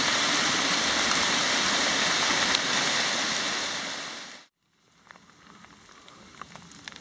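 Rain-fed runoff pouring over a small desert waterfall: a steady rush of water that fades out about four seconds in. After a brief silence comes a much quieter stretch with a few faint ticks.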